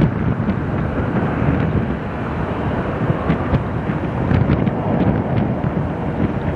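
Wind buffeting the microphone in gusts, over the steady distant noise of an Airbus A380's jet engines as the airliner moves along the runway.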